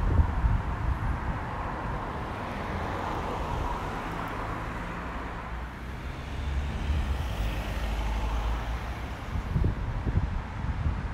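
Outdoor ambience: a low rumble of road traffic that swells in the middle, with wind gusts buffeting the microphone at the start and again near the end.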